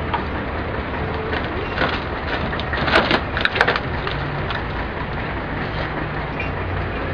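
Steady street noise with a low hum, and a quick cluster of knocks and clanks about three seconds in, from men handling an overturned van.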